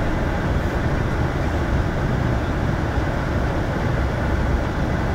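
Steady low travel noise inside a bus cruising along a motorway.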